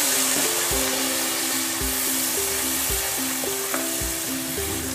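Tomato puree sizzling in hot ghee and spices in a kadhai, stirred with a wooden spatula. Background music with a steady beat plays under it.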